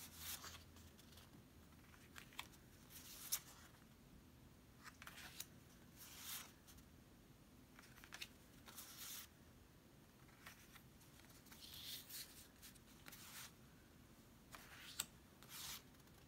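Faint rustling and soft slaps of glossy postcard-size photo cards being picked up, slid against each other and laid down on a stack, in short scattered sounds with quiet gaps between.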